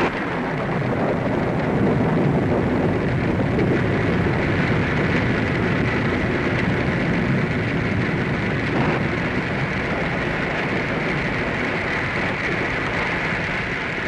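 Radio sound-effect rain for a storm: a steady hiss of small pellets poured from a paper bag into a funnel and pattering onto a screen below.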